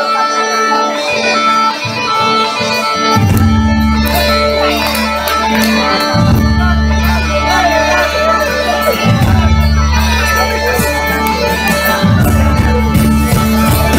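Live southern Italian folk music led by a zampogna (bagpipe) with steady droning tones. A full band with a bass line joins about three seconds in.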